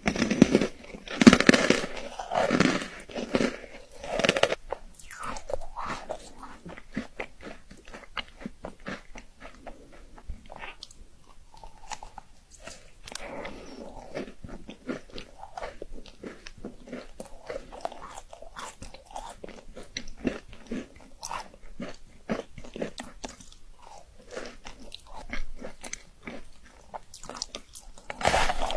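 A person biting into and chewing chocolate: several loud bites in the first few seconds, then quieter, steady chewing with many small clicks, and another loud bite at the very end.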